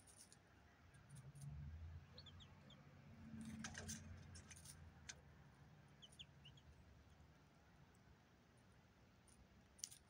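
Near quiet: a few faint, short bird chirps in small groups, over a low rumble that swells and fades in the first seven seconds. Scattered clicks come in the middle, and a sharper click near the end.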